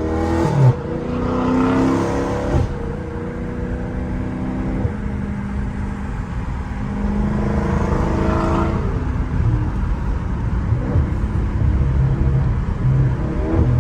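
Catless Dodge Scat Pack's 6.4-litre Hemi V8 exhaust under hard acceleration, rising in pitch twice (at the start and again about eight seconds in) with steadier cruising between, and a sharp pop about a second in.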